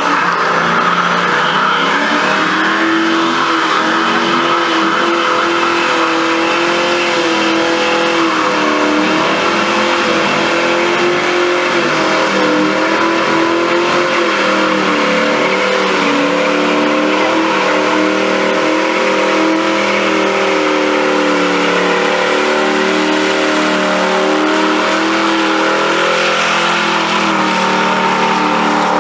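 An American muscle car's engine held at high revs through a long burnout, its pitch wavering only slightly, over the hiss and screech of rear tyres spinning on asphalt.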